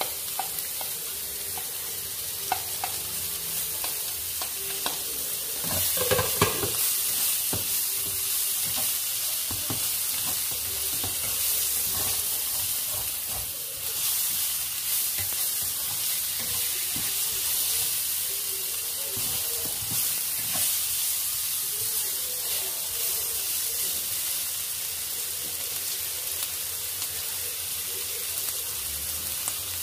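Sliced onion and carrots sizzling in hot oil in a frying pan while a spatula stirs and scrapes them around the pan, with a cluster of louder scrapes and knocks about six seconds in.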